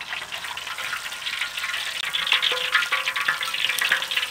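Whole fish deep-frying in hot oil in a wok, the oil sizzling and crackling, louder from about two seconds in.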